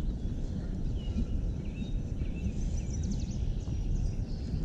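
Steady low rushing outdoor noise of wind and flowing river water, with faint high bird chirps scattered through the middle.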